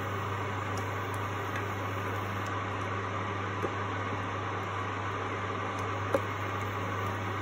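A spatula stirring potato pieces through curry in a kadai, with a couple of light knocks against the pan, the louder one about six seconds in, over a steady low hum and hiss.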